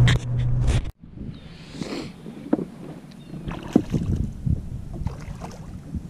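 A steady low hum inside a pickup truck cab cuts off suddenly about a second in. Wind and water lapping around a bass boat follow, with a few light knocks and splashes while a hooked fish is played on a bent rod.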